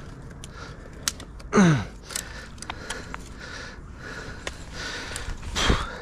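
A man breathing hard as he strains at the line, with a loud falling groan about one and a half seconds in and another strained vocal sound near the end. Sharp clicks and twig snaps come from the dry branches he is handling.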